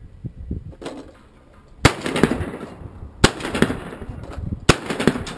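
Shotgun firing three shots about a second and a half apart, each with a short echo, at a flying dove.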